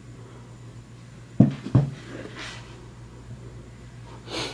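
Handling noise from a sneaker: two dull thumps about a third of a second apart, then a soft brush and a short hiss near the end, over a steady low electrical hum.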